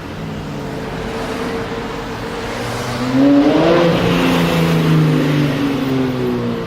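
Lamborghini Murciélago V12 engine with Capristo exhaust; about three seconds in it swells sharply louder and higher, then its pitch slowly falls away.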